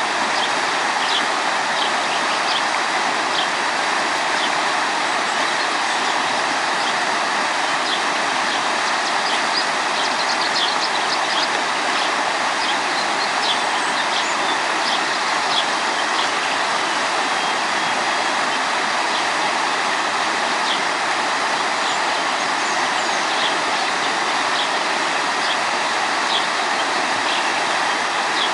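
Water of the Tiétar river rushing steadily, with short high bird chirps repeated over it.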